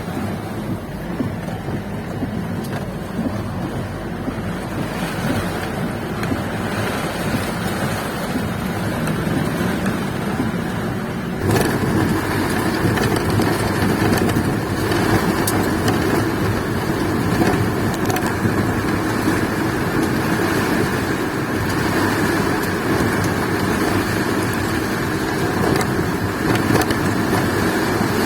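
Storm wind and rain making a steady rushing noise, which turns suddenly louder about eleven seconds in and stays that way.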